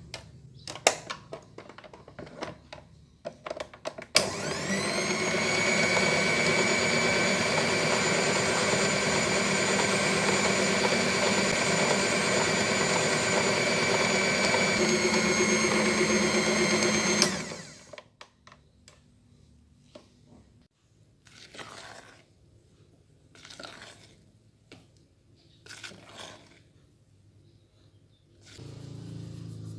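Electric stand mixer with twin beaters running at speed in a bowl of pale batter. It whines up as it starts about four seconds in, runs steadily for about thirteen seconds with a slight change in pitch partway, then stops. A few knocks come before it, and afterwards a spatula scrapes quietly around a mixing bowl.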